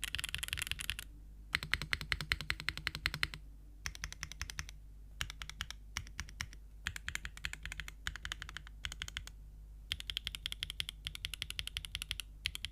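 Typing on a Geonworks F2-60 60% mechanical keyboard with Gateron Smoothie linear switches in an o-ring-mounted aluminum plate, without foam. The keystrokes come in quick runs of a second or so, broken by short pauses.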